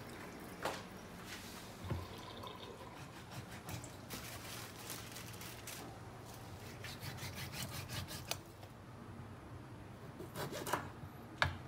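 Wet raw pork slices being handled and rubbed by hand, with scattered light knocks and rustles as the meat is set on a wooden cutting board, and a short cluster of sharper clicks near the end.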